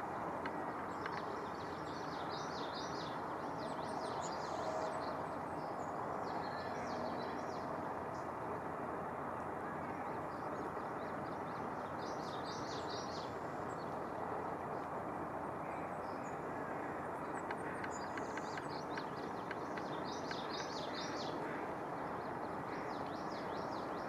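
Small songbirds chirping in several short bouts of high calls over a steady hum of outdoor background noise.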